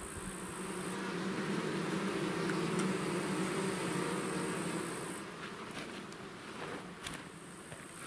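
Honeybees buzzing around the entrance of a new hive that their colony has just been moved into from a swarm trap. The hum swells toward the middle and fades after about five seconds.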